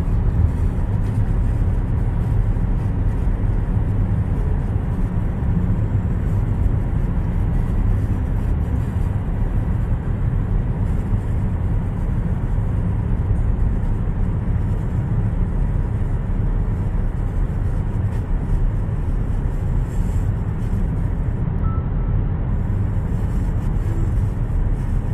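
Steady road noise of a car driving along a highway: an even low drone of tyres and engine with a fainter hiss above it, unchanging throughout.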